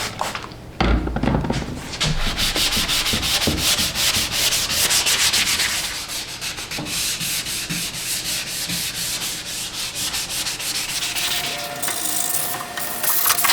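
Sanding by hand with 320-grit sandpaper: quick, rhythmic back-and-forth scratching strokes over the tool chest's surface.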